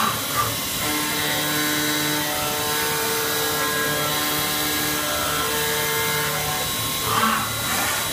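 CNC vertical machining centre milling aluminium: a steady spindle whine with a hiss, its tones shifting as the cutter works. It swells briefly near the start and twice near the end.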